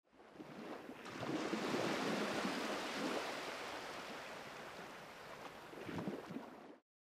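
Sound effect of ocean surf washing: a rushing swell builds over the first second or so, eases off, surges again near the end, then cuts off abruptly.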